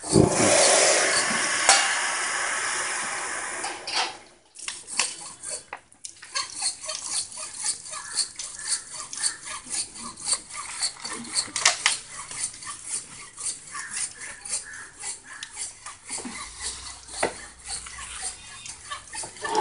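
Hand saw cutting through an elephant's tusk, a long run of short rasping strokes. A loud, even rushing noise fills the first few seconds.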